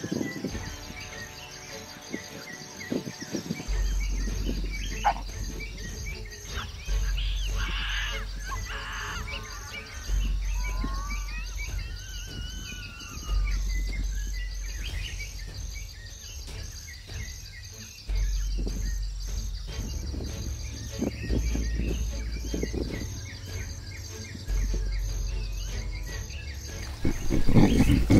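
Background music with a deep bass note that changes every few seconds, over natural ambience with bird calls, clearest about eight to twelve seconds in. A louder burst comes near the end.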